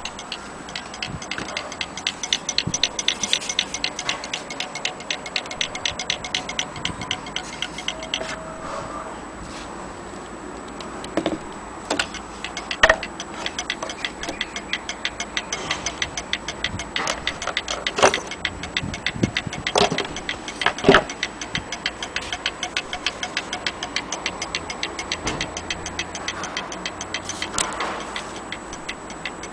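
Antique fusee station dial clock ticking steadily, its escapement giving a fast regular train of sharp ticks. A few louder knocks cut in about halfway through.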